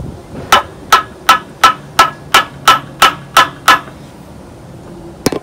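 A tool tapping on metal: about ten sharp, evenly spaced taps, roughly three a second, then one louder knock near the end.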